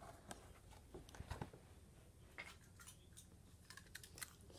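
Near silence, with a few faint clicks and rustles of a box and a small toy being handled.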